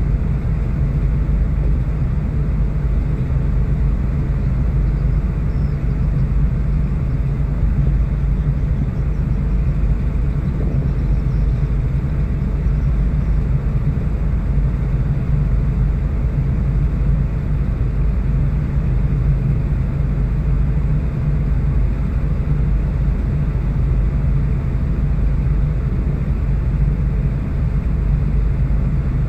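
A container ship's engine and deck machinery running steadily under way, a constant low rumble with a steady hum in it.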